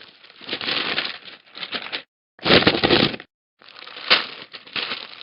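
A man belching: three long, rough belches in a row, the middle one shorter and the loudest.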